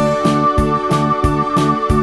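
Upbeat background music with a steady beat and a held high note.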